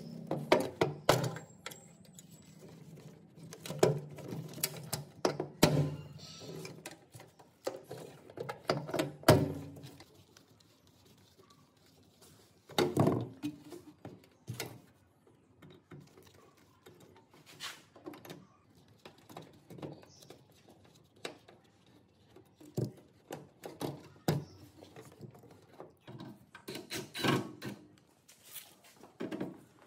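Irregular knocks, clicks and clunks of hand work with tools and parts. A low hum runs under them for the first ten seconds or so, then stops.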